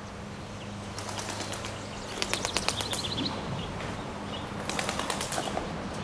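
Bird wings flapping in two quick bouts of rapid beats, the first about two seconds in and the second near five seconds, over a steady low hum.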